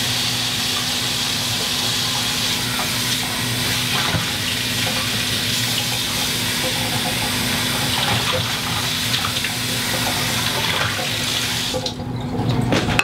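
Water running steadily, like a tap left on, cutting off near the end, with a low steady hum underneath.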